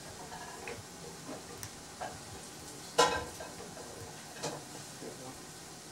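Hot frying pan sizzling steadily, with a few sharp clinks of a cooking utensil, the loudest about three seconds in.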